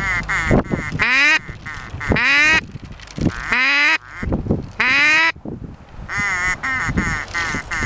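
Loud duck quacking: a few short quacks, then four long drawn-out quacks that drop steeply in pitch, then a quick run of short quacks near the end.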